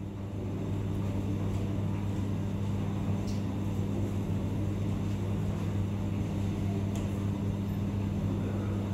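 Steady low mechanical hum: a deep drone with a second tone an octave above it, unchanging throughout.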